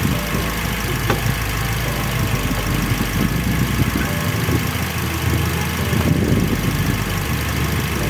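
A Toyota Rush's engine idling with a steady low rumble, and a small click about a second in as hands work behind the headlight.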